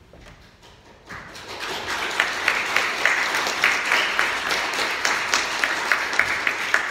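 A congregation applauding, starting about a second in and quickly building to a full, steady round of clapping.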